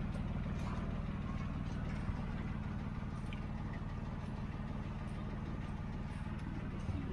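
Outrigger boat's engine running steadily, a constant low hum with no change in pace.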